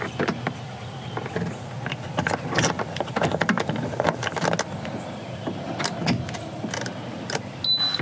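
Irregular clatter of clicks and knocks as a portable 12-volt car fridge is handled and set up in a vehicle, busiest through the middle, then a short high electronic beep near the end.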